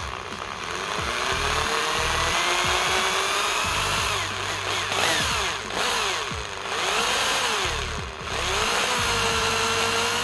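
Small electric drill boring out the rivets of a die-cast toy car's metal base, its whine repeatedly dipping and rising as the bit bites and frees up.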